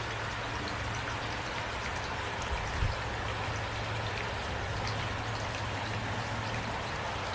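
Steady rain falling, an even hiss dotted with faint drop ticks, over a low steady hum. A brief low thump about three seconds in.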